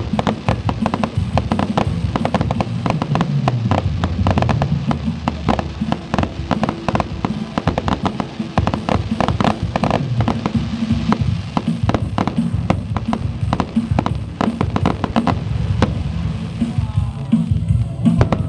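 Fireworks display going off in a dense run, a rapid succession of bangs and crackles many times a second.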